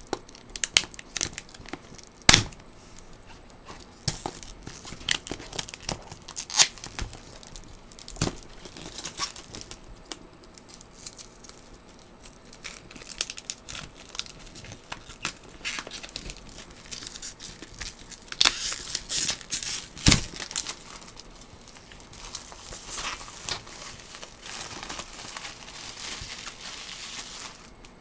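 Clear plastic shrink wrap being torn and crumpled off a cardboard box: irregular crackles and sharp rips, busiest about two-thirds of the way in, with the box handled in between.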